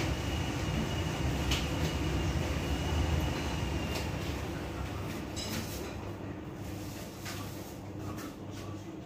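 Steady low hum in a home kitchen, slowly fading, with a thin high whine that stops about four seconds in. Scattered sharp clicks and clatter of kitchen work at the counter sound over it.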